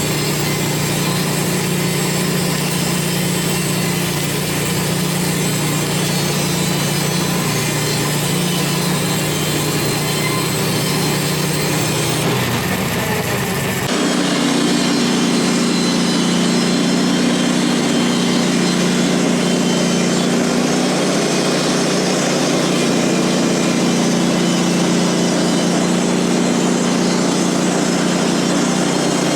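Portable sawmill's engine running steadily while the blade cuts through a pine log. The engine note changes abruptly about halfway through.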